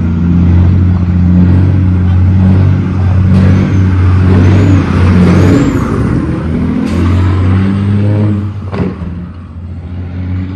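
Semi-truck's heavy diesel engine running loud and deep as the truck pulls away, with a steady low drone. After a short sharp sound about nine seconds in it turns quieter as the truck moves off.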